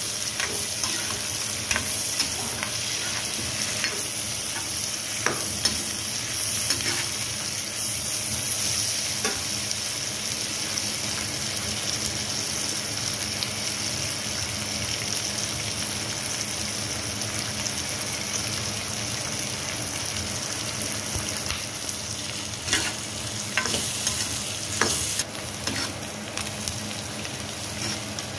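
Freshly added sliced onions and whole garlic frying in hot oil in a kadhai: a steady sizzling hiss, broken by short scrapes and knocks as a spatula stirs them to coat them in the oil. The knocks come more often near the end.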